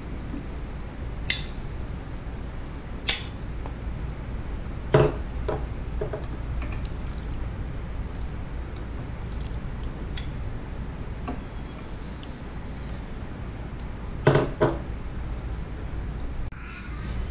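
Metal serving spoon clinking against a metal cooking pot and a ceramic bowl while stew is ladled out: scattered short, sharp clinks, the loudest about five seconds in and a pair near the end, over a steady low hum.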